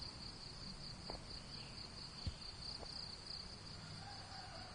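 A steady high-pitched insect trill, pulsing slightly, with a couple of light clicks and one thump a little over two seconds in.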